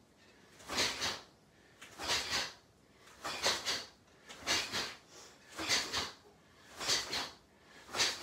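Repeated karate punches thrown from front stance at speed, each one a short whoosh of moving clothing and breath, about once every 1.2 seconds, seven times.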